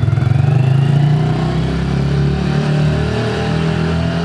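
Small motorcycle engine running and revving as the minibike pulls away, its pitch climbing over the first second or so and then holding, echoing off the concrete of an underground car park.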